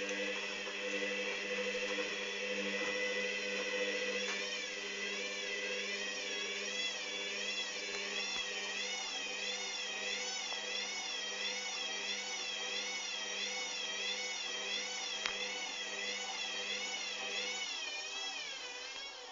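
Hoover Dynamic washing machine spinning its unbalanced load on the third spin. The motor whine wavers up and down in pitch a little more than once a second, and its lower hum drops away near the end.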